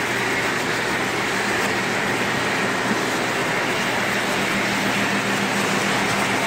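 Model train running on the layout: a steady rumble with a low hum.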